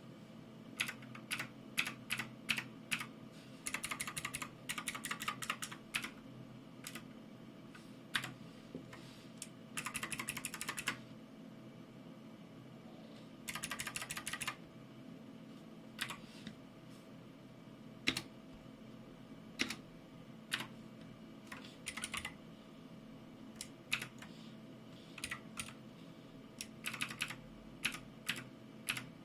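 Keycool 84 2S mechanical keyboard with clicky Gateron Blue switches being typed on: scattered single keystrokes broken by a few short runs of fast typing.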